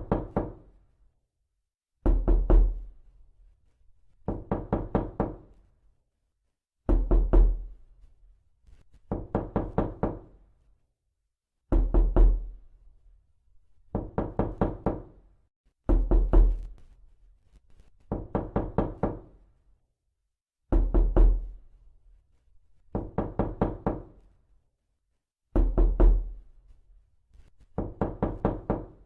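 Knuckles knocking on a door in repeated bursts of four to six quick raps, a new burst about every two seconds.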